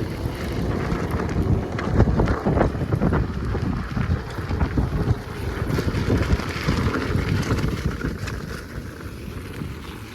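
Wind buffeting the microphone in an uneven low rumble, loudest through the first half and easing off near the end.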